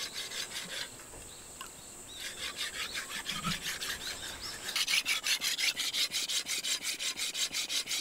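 A steel sickle being sharpened on a whetstone mounted on a wooden post: the blade is drawn back and forth over the stone in quick, even scraping strokes, about three to four a second. The strokes pause briefly about a second in and are louder in the second half.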